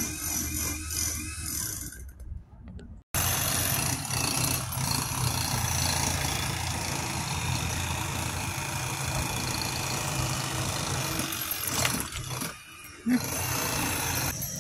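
Construction machinery from the neighbouring building site running steadily: a loud low engine rumble with a noisy haze over it. It breaks off briefly about three seconds in, and a sharp knock comes near the end.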